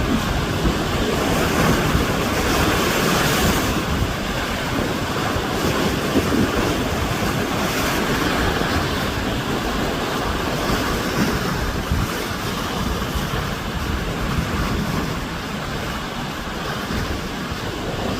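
Sea waves breaking and washing ashore, a continuous surging wash that swells and eases, with wind buffeting the microphone.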